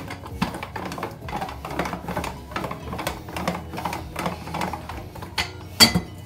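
Hands working flour dumpling dough on a kitchen counter: irregular light taps and knocks, a couple a second, with a louder knock near the end.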